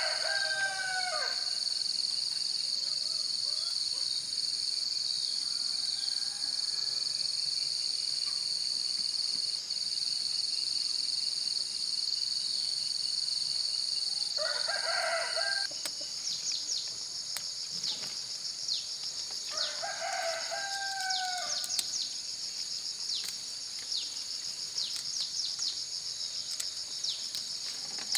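A rooster crowing three times: near the start, about halfway through and about two-thirds of the way through. Under it runs a continuous high-pitched insect trill, which turns into a faster chirping with many quick ticks about 16 seconds in.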